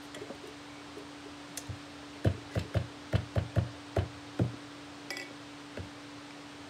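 A quick run of about eight low gulps, two to three a second, as she swallows a drink through a straw from a tumbler, close to the microphone. A steady low hum runs underneath.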